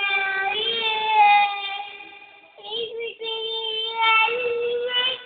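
A child singing long held notes, with a short break about halfway through.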